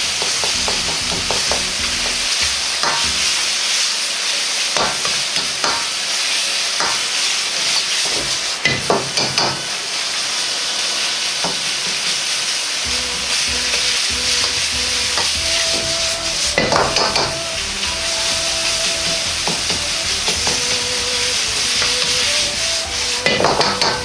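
Chicken and vegetables frying and sizzling in a wok, stirred with a metal ladle that scrapes and clacks against the pan, with a few louder clatters.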